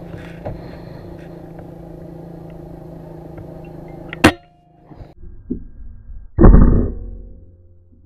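Kral Puncher Breaker .25 air rifle shot at a pigeon: a steady background hum breaks off at a sharp crack about halfway through. A few small knocks follow, then a louder, deep thump that fades away near the end.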